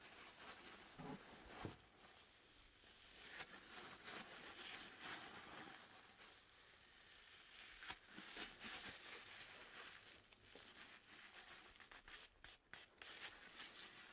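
Faint rustling and rubbing of a paper towel wiping a sashimi knife's wooden handle, with a few light knocks.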